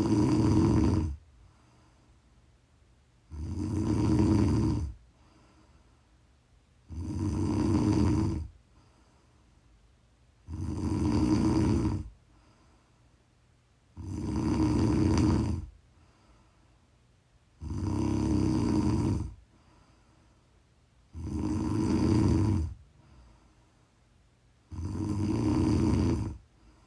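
A woman snoring in deep sleep, steady and rhythmic: eight loud snores, each about a second and a half long, one every three and a half seconds, with quiet breathing gaps between.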